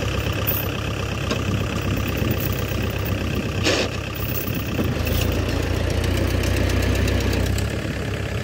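Kubota L4508 tractor's diesel engine idling steadily close by, its low engine sound growing stronger from about five seconds in and easing back near the end. A brief hiss about three and a half seconds in.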